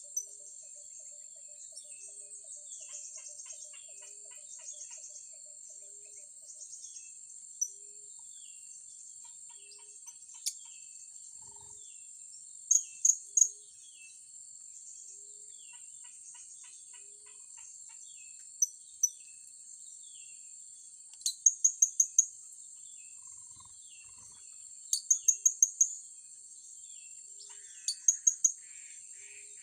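Blue-crowned hanging parrots (serindit) giving short, sharp, high-pitched calls in quick runs of three to five, several times over, above a steady high drone of insects.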